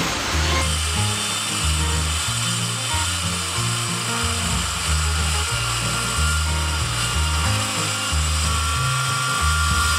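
Handheld electric circular saw running as it cuts through a thick wooden keel timber, with background music and its bass line playing over it.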